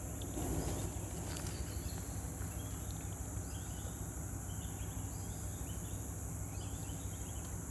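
Steady high-pitched drone of insects, with short chirps repeating every second or so. A brief rustle and two faint clicks come in the first second and a half.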